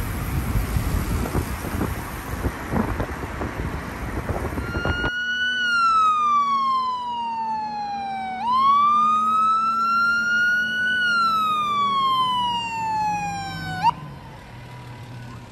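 Road and wind noise from inside a moving car, then a fire truck's siren wailing, sliding slowly down in pitch, rising again and falling once more before it cuts off with a short chirp near the end.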